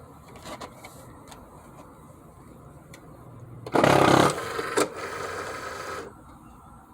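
Cricut Explore Air 2 cutting machine making its loud mechanical noise: a few light clicks, then a loud half-second burst about four seconds in, a click, and a quieter motor noise for about a second and a half that cuts off. The noise comes from a faulty machine that will not load the mat or cut.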